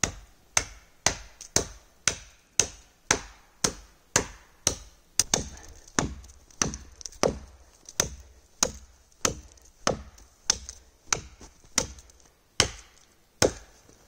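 A hatchet chopping into the trunk of a small standing tree: a steady run of sharp blows, about two a second, that stops shortly before the end.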